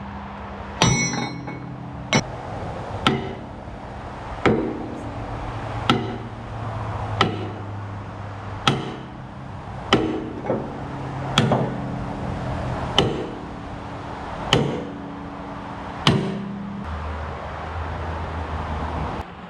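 Sledgehammer blows on a seized steel linkage pin in an excavator's arm, hammering to drive the stuck pin out. Sharp metal strikes come one after another, about one every one and a half seconds.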